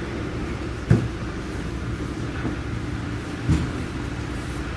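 Automatic car wash machinery running with a steady low rumble, with two dull thuds, one about a second in and another about three and a half seconds in.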